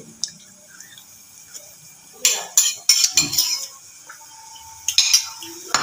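Metal spoon clinking and scraping against a bowl and a metal wok as spice paste is spooned out, a handful of sharp clinks in the second half.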